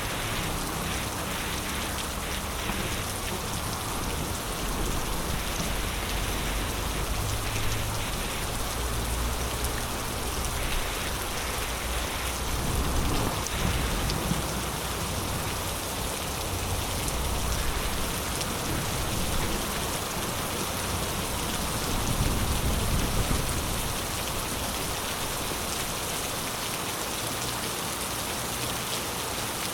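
Heavy rain falling steadily in a storm, a dense even hiss, with low rumbles swelling up a few times, most strongly about halfway through and again near three quarters of the way.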